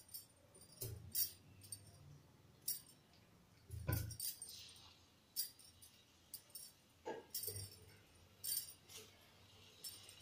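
Faint clinks of bangles on the wrist, with a few soft knocks as stuffed brinjals are set one by one into oil in an iron kadhai; the firmest knock is about four seconds in.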